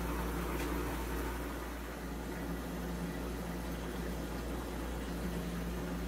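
A camper's fresh-water pump running steadily as water fills a Monomatic recirculating toilet's bowl toward its 4-gallon charge, a steady hum over a hiss of flow; the sound is listened to for a change that marks the tank being full.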